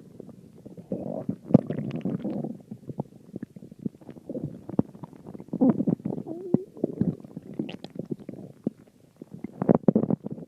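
Stomach growling and gurgling in irregular bursts of low rumbles and wet clicks, with a short wavering squeal about six and a half seconds in.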